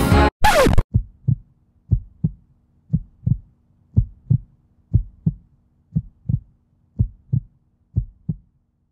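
Music cuts off with a short scrape as the stylus is lifted from a vinyl record, then a slow heartbeat sound, a soft lub-dub pair of thumps about once a second, over a faint steady hum.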